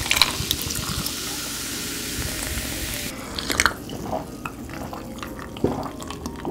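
Carbonated lemon-lime soda (Korean cider) poured from a can into a glass of ice, fizzing steadily and stopping abruptly about three seconds in. Then come a few short clinks and drinking sounds as the glass is drunk from.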